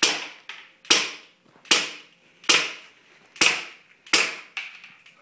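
Airsoft pistol firing six shots, each a sharp crack with a short echo, about one every 0.8 to 0.9 seconds, with a few fainter ticks between shots.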